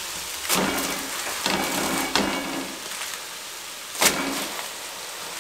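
Aluminium foil packets crinkling as they are handled and set down into a hot aluminium pot, with a crackle each time one lands, about four times.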